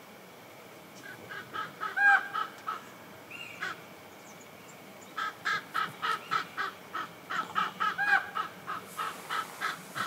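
A bird calling in quick runs of short, harsh pitched notes, about four a second, with a longer note that rises and falls in each run, around two seconds in and again about eight seconds in.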